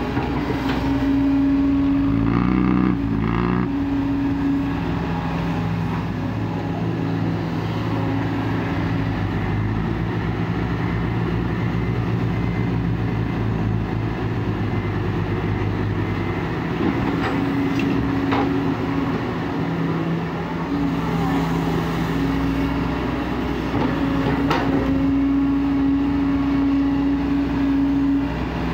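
Kobelco SK140 excavator's diesel engine running steadily while it digs and loads soil, its hum shifting in pitch as the work loads it, with a couple of sharp knocks.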